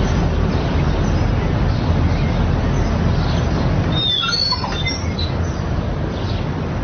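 A steady low noise, then about four seconds in a door creaking open with a few short, high squeaks.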